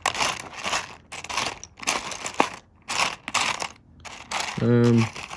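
Pieces of rough opal being handled and shuffled about, giving an irregular run of small clicks, rattles and rustles. A short vocal sound comes near the end.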